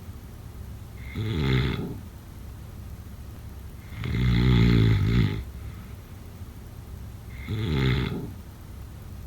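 Slow, regular snoring: three loud snores about three seconds apart, each lasting about a second, with quiet breathing between them.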